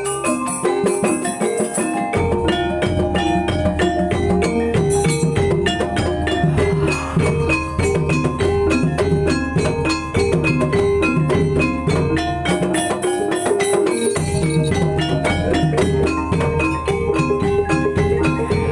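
Banyumasan gamelan music for an ebeg horse trance dance: fast, evenly pulsing tuned percussion over a low drum part. The drum drops out for a moment about two-thirds of the way through, then comes back in.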